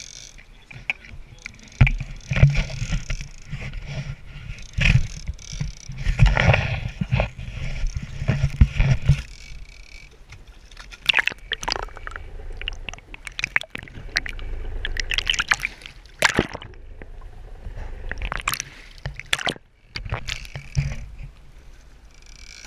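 Sea water sloshing and splashing around a camera lowered over the side of a small boat and under the surface, with many sharp knocks and bumps. There is a low rumble in the first half, and sharper splashes and knocks follow in the second half.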